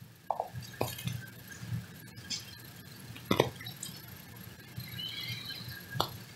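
A quiet room with a few light, sharp clicks and taps, three of them plainly heard, over faint low background noise.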